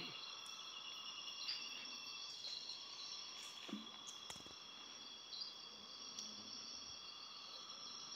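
Steady insect chorus of several high, unbroken trilling pitches, with a few faint clicks.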